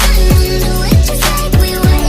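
Background music: a Hindi hip-hop/pop track with a steady beat and deep sliding bass hits about twice a second, between rapped lines.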